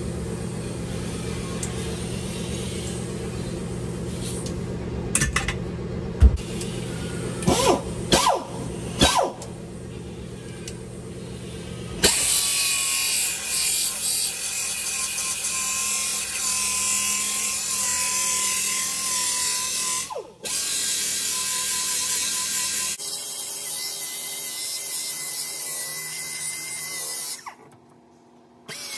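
Pneumatic reciprocating body saw cutting through the truck's sheet-steel floor pan. From about twelve seconds in it runs as a loud hiss with a steady buzzing tone, and it stops briefly near the end. Before that there is a steady hum broken by a few sharp knocks.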